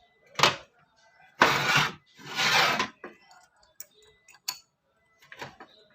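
Metal steering-gear parts being handled on the bench: a sharp click, then two brief scraping rushes of about half a second each, then a few light clicks.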